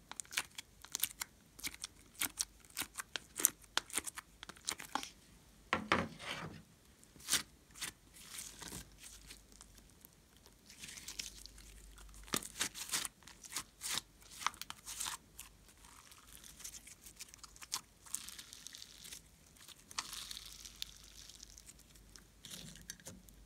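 Hands squishing, pressing and stretching slime and soft clay: a dense run of sharp sticky crackles and clicks for the first several seconds, then softer, longer stretches of sticky rustling.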